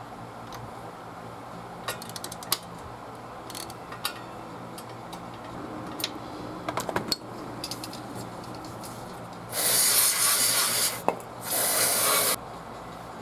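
Metal tools and parts clinking and rattling, then two hissing bursts of spray, the first about a second and a half long and the second shorter.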